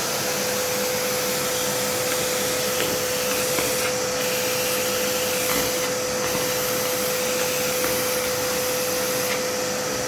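Kärcher WD 3 wet-and-dry vacuum cleaner running at full suction, a steady rushing whine with a strong constant hum.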